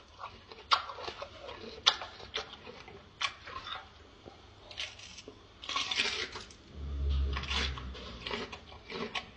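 Gorilla chewing raw red pepper with wet, irregular crunches, the sharpest about one and two seconds in. A low rumble comes in about seven seconds in.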